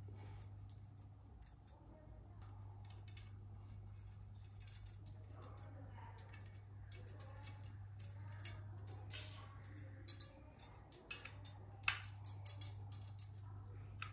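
Faint, irregular light metallic clicks and ticks of steel spokes being handled and threaded through the rim while lacing a bicycle wheel, a few sharper clicks after the middle, over a steady low hum.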